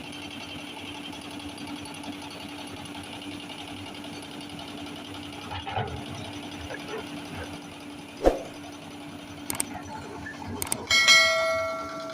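Heavy construction machinery running with a steady low hum, a sharp knock about eight seconds in, then a loud metallic clang near the end that rings on like a struck bell and fades.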